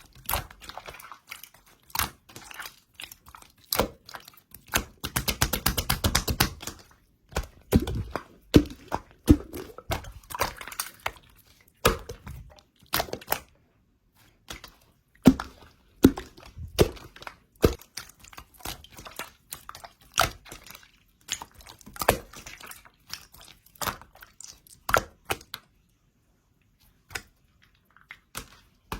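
Slime being handled, squeezed and poked, giving sharp clicks and wet pops at irregular intervals, with a fast run of tiny crackling clicks about five seconds in.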